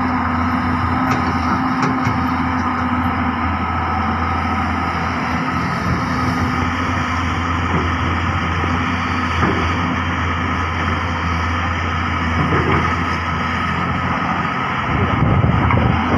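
A large Hyundai excavator's diesel engine running steadily, with a slight rise in level near the end.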